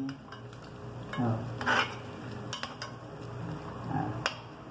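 Ground-beef meatballs sizzling in a small pan while a spoon stirs and moves them, with a few sharp knocks of the spoon against the pan.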